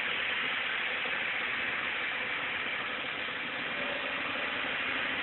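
A heavy machine's engine idling steadily under an even hiss.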